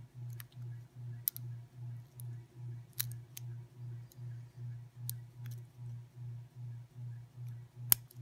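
Single-pin picking of a Squire SAL-40 padlock: scattered sharp metallic clicks as the hook pick works the pin tumblers against the tension wrench, the loudest near the end. Under them runs a steady low hum that pulses about two and a half times a second.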